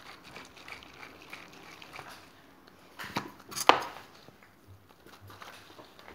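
Aerosol can of shaving foam being sprayed: faint handling rustles, then two short spluttering hisses about three seconds in, the second one loud.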